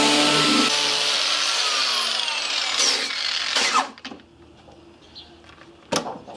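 Angle grinder with a sanding disc running against rusty metal, cleaning it back before painting; about a second in it is switched off and its whine falls in pitch as it winds down, stopping after about four seconds. A sharp knock follows near the end.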